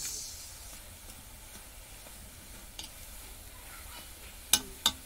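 Chulbule dough strands deep-frying in hot oil in a wok, a steady faint sizzle, with two sharp clicks near the end.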